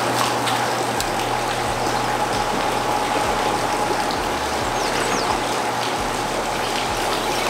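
Steady rush of water flowing through a river dam spillway, an even noise with no rise or fall, with a faint steady whine underneath.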